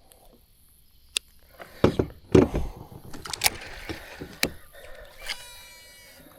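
Tackle being handled while a soft plastic is rigged on a jig head in a kayak: a handful of sharp clicks and knocks with rustling between them. A brief buzzing sound comes about five seconds in.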